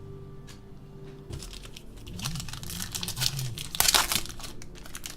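Foil wrapper of a trading-card pack crinkling and tearing as it is opened by hand, in a series of scratchy rustles that are loudest about four seconds in.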